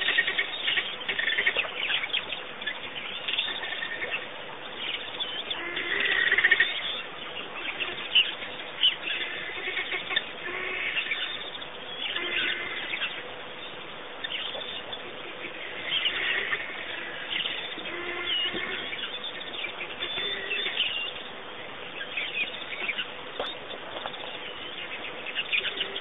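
Several birds chirping and calling, with many short calls overlapping one another and a louder burst of calls about six seconds in.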